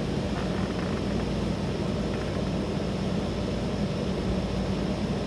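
A steady low rumble of outdoor background noise, with a constant low hum in it and no separate events.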